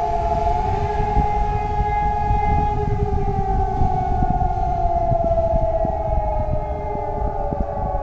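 Civil-defence warning siren sounding a long tone, with a second lower tone beneath it. The tone holds steady for about three seconds, then slowly slides down in pitch.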